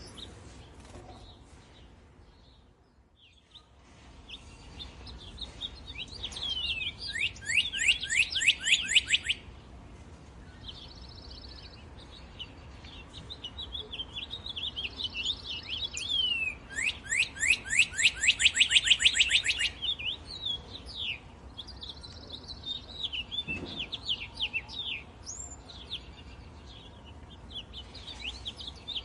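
Birds chirping and calling, with two loud runs of fast, repeated down-slurred notes, one about a quarter of the way in and one past the middle.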